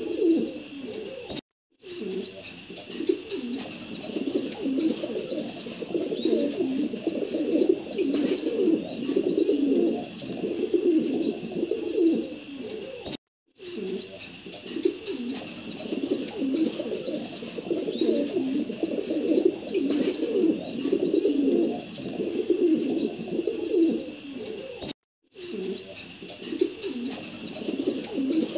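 Pigeons cooing continuously, many overlapping voices, with high bird chirps above them. The sound cuts out completely for a moment three times, about every twelve seconds.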